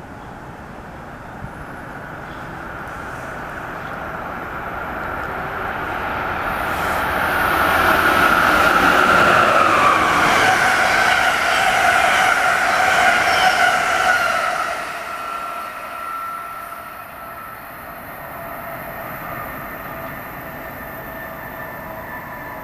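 Amtrak Northeast Regional passenger train hauled by a Siemens ACS-64 electric locomotive passing at speed. The wheel-on-rail noise builds up, is loudest for several seconds as the cars go by, and has a high tone that drops in pitch during the pass. It then falls away quickly, leaving a fainter steady tone.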